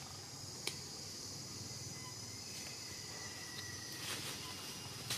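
Steady high-pitched insect chorus, with a single sharp click a little under a second in.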